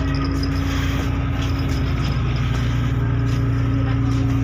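The ferry's engines drone steadily with a low hum, growing a little stronger about three seconds in.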